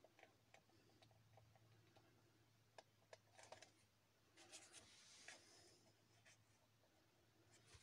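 Near silence: faint rustles and a few light ticks of a paper card being pressed and handled, over a faint low steady hum.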